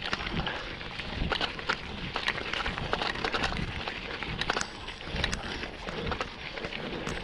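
Mountain bike ridden over a rough dirt trail: steady tyre noise with frequent, irregular clicks and knocks from the bike rattling over the ground.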